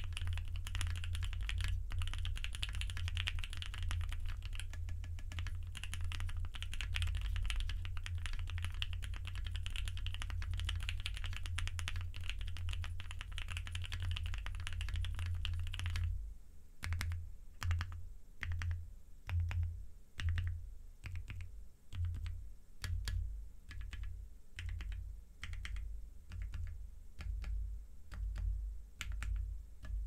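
Mechanical keyboard typing on a CannonKeys Bakeneko with lubed, filmed C3 Tangerine linear switches, an FR4 plate and ePBT keycaps. It starts as fast, continuous typing with both hands. About halfway through it changes to single keys pressed one at a time, a little over one stroke a second, each with a low thump, ending on the screw-in-stabilized Enter key.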